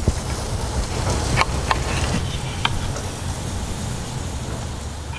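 Steel knife and fork cutting a grilled steak on a plate, clinking sharply against the plate a few times, over a steady hiss and low rumble.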